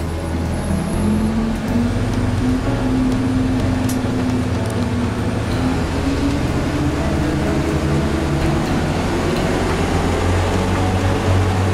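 Bus engine running under way, heard from inside the cab. Its pitch climbs steadily through the second half as it speeds up.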